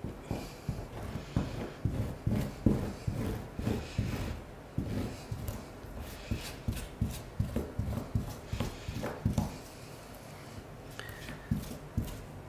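Gloved hands pressing and rubbing grout into a mirror-glass mosaic laid on a plastic sheet: a run of irregular soft knocks and rubbing, about two to three a second, which thins out about ten seconds in.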